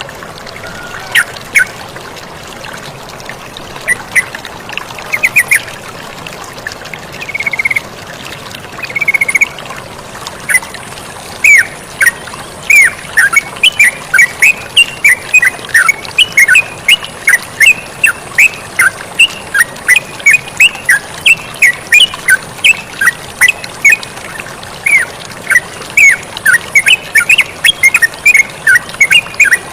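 Yellow-vented bulbul calling with short, sharp notes: scattered at first, then a fast, steady chatter from about ten seconds in. Flowing water hisses steadily underneath.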